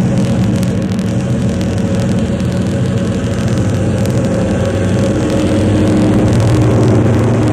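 Diesel locomotives pulling a train, their engines making a steady deep drone that grows a little louder near the end.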